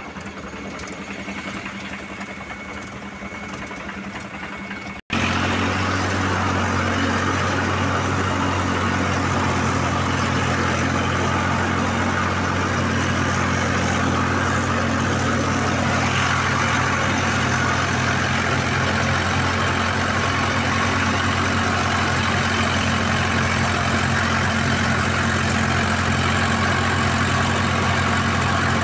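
Diesel tractor engine running at a steady speed, heard close up from a tractor's seat. It cuts off abruptly about five seconds in and comes back much louder and steady.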